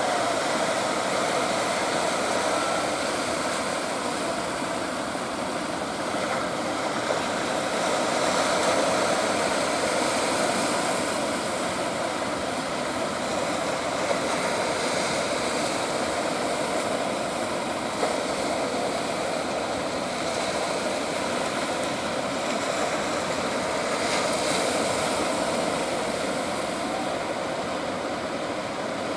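Steady rush of surf and churning water, with a continuous engine-like drone mixed in.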